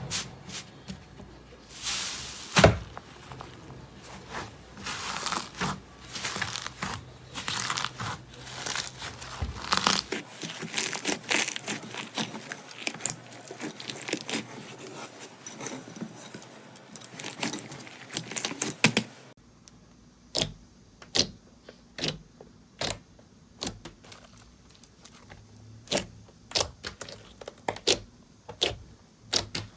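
Slime being squeezed and worked by hand, a dense run of crackling and crinkling. Partway through it changes to a regular series of sharp separate clicks, one or two a second.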